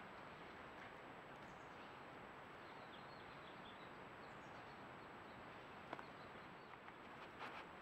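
Near silence: a steady faint background hiss, with a few faint high bird chirps in the middle and a couple of soft ticks near the end.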